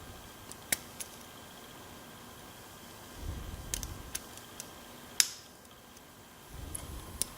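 Sparse sharp metallic clicks and light scraping from a lock pick and tension wrench working the key pins of a ScanLock SLX-5 lock cylinder, with low handling rumble in between. The loudest click comes just past five seconds.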